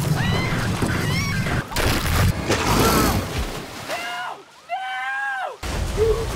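Film sound of a hurricane flood: rushing, sloshing water and storm noise with several screams, the longest about two-thirds of the way through. Near the end a heavy burst of splashing water as an alligator lunges.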